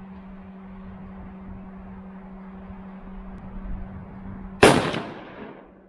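A single gunshot from a 5.56 AR-style pistol with a 10.5-inch barrel and a Troy Claymore flash suppressor. It comes near the end and rings out, dying away over about a second, over a steady low hum.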